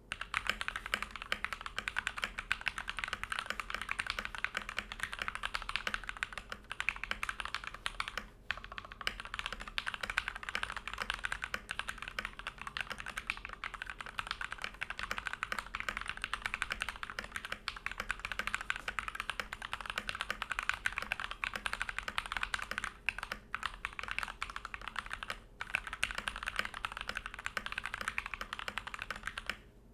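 Fast continuous typing on a Keychron K2 mechanical keyboard fitted with lubed C3 Equalz Tangerine 62 g linear switches, plate-mounted stabilizers and case foam, with brief pauses around 8 s and 23 to 26 s in.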